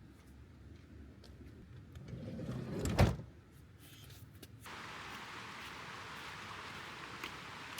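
A van's sliding door rolled along its track and slammed shut about three seconds in. A steady hiss starts abruptly near the middle and continues.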